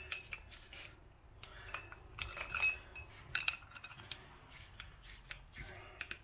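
Light clicks and clinks of small metal parts being handled, with a few short ringing chinks about two and a half and three and a half seconds in.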